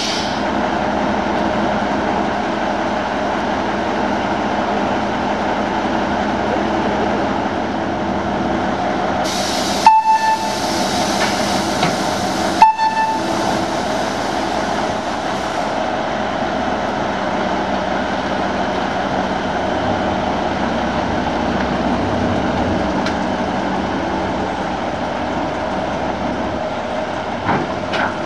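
Small Köf II diesel shunting locomotive idling steadily. About ten seconds in and again under three seconds later come two short horn toots, with a hiss of air between them.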